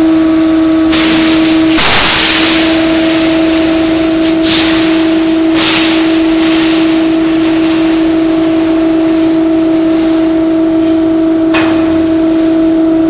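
Steel-coil cut-to-length line running, a steady machine hum under heavy mechanical noise, with several short hisses, the loudest about two seconds in.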